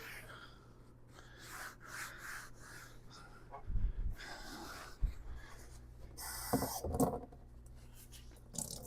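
A cloth wiping and scrubbing a wet vinyl-covered case: intermittent soft rubbing strokes with a few dull knocks from handling the case.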